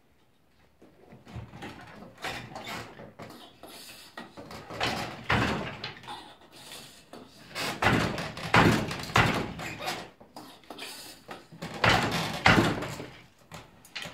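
Wooden handloom weaving silk velvet ikat, clacking and knocking as it is worked by hand and foot: irregular bunches of wooden knocks, loudest in two runs about eight and twelve seconds in.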